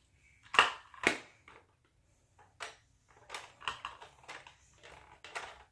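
Small hard plastic toy pieces and a plastic toy truck being handled: irregular clicks and knocks, the two loudest about half a second apart near the start, then lighter taps.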